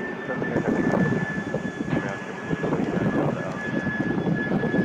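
Twin-engine wide-body jet airliner flying low overhead on approach: a continuous rumbling engine noise with a steady high whine over it.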